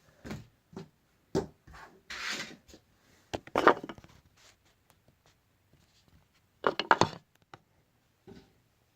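Phone parts and tools handled on a work surface: scattered clicks, taps and short scraping rubs, with the loudest scrapes about three and a half seconds in and again around seven seconds.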